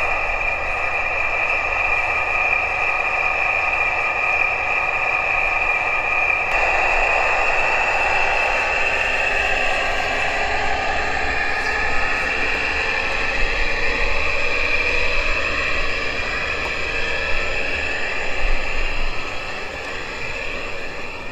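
Small 32 mm gauge garden-railway locomotive running as it pulls its train away, a steady mechanical whine of several held tones that begin to waver and glide about six seconds in.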